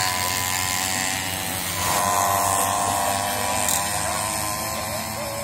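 Racing mopeds' small two-stroke engines buzzing at high revs as they lap the track, the pitch climbing about two seconds in as one accelerates.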